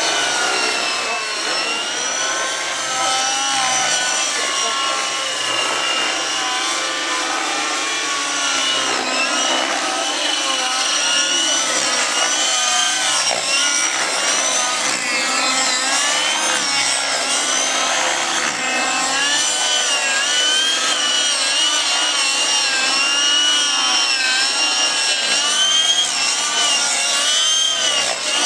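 Radio-controlled model helicopters flying, their engines and rotors whining continuously, the pitch rising and falling over and over as they throttle and manoeuvre.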